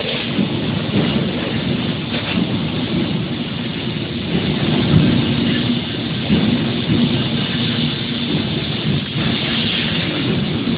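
Robot-arm fiber laser cutting head cutting sheet metal: a steady rushing hiss from the assist-gas jet at the nozzle, over a low machine hum, with a few faint clicks.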